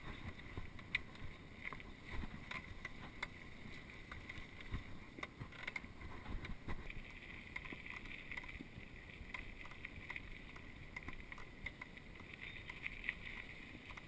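Worn rental mountain bike rolling over a grass trail and then a gravel path: a low rumble of tyre noise with frequent small rattles and knocks from the bike. A steady high hum grows stronger from about halfway.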